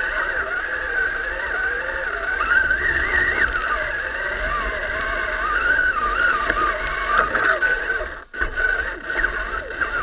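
Electric motor and gear whine of a radio-controlled off-road truck driving over dry leaves, the pitch wavering up and down with throttle and load. It cuts out briefly about eight seconds in, then picks up again.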